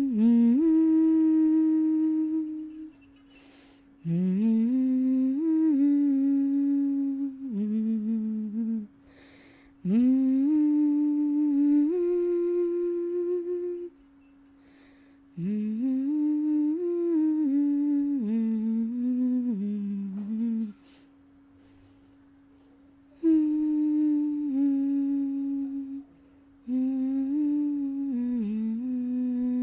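A person humming a slow, gentle melody in phrases a few seconds long, with short pauses between them, over a steady held tone that continues through the pauses.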